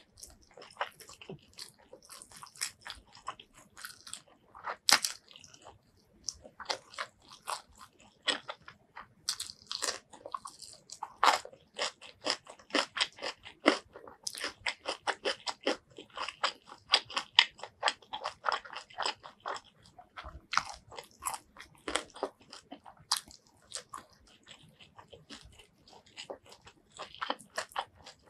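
Close-miked eating of fried chicken: crisp crunching bites and chewing, many sharp crackles in quick succession with a few short pauses.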